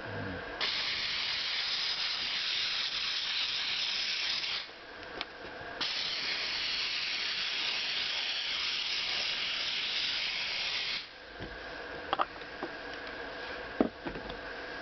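Handheld steam cleaner jetting steam in two long hissing blasts, the first about four seconds and the second about five, onto a sewing machine's mechanism to blow out old oil and grease. A few light clicks follow near the end.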